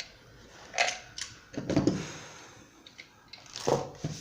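Scattered short clicks and knocks of metal parts and tools being handled while assembling a ceiling fan's motor mount.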